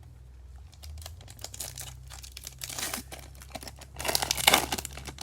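Foil wrapper of a Bowman trading-card pack crinkling as it is torn open and handled, in irregular crackles, with the loudest burst about four seconds in.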